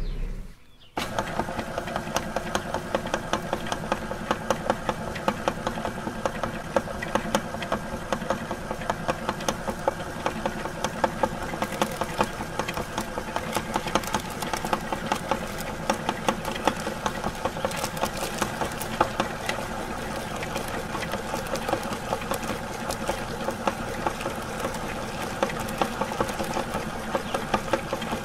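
Electric meat grinder running as it grinds frozen chocolate-coated ice cream bars, a steady motor hum with a rapid, continuous rattling clatter from the gears and auger. It starts about a second in.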